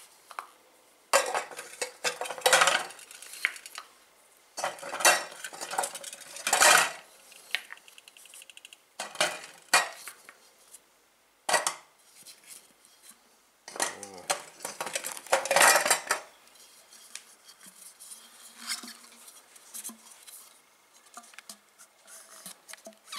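Solid rocket-motor propellant grains being pulled one by one from a metal motor casing and set into a metal tin, heard as repeated bursts of clattering and clinking. About six bursts come in the first two-thirds, then fainter clicks.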